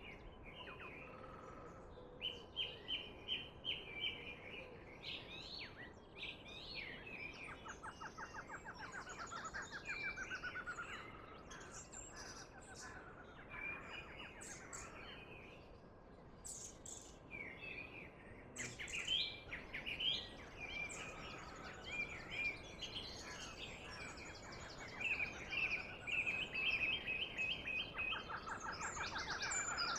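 Several wild birds singing and calling at once, short chirps and whistles overlapping with quick trills, over a soft steady hiss.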